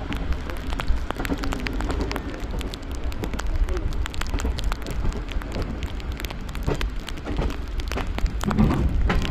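Express passenger train running, heard from on board: a steady low rumble with many quick clicks and rattles.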